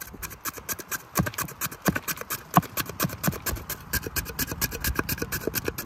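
Rapid chopping with a knife on a wooden cutting board: a fast, uneven run of sharp knocks, several a second, some struck harder than others.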